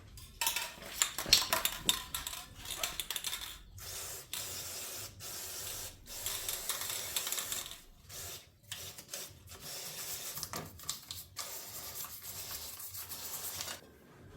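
Hand work on a Yamaha YZF-R3's front brake: rubbing and scraping noise in stretches of a second or two with short breaks, with a run of clicks and knocks in the first couple of seconds.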